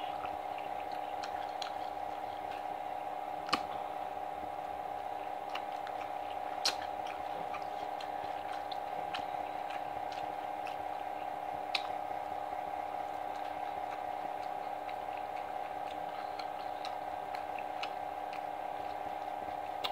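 Fried chicken being torn apart by hand and chewed: faint tearing and mouth sounds with a few sharp clicks, over a steady hum.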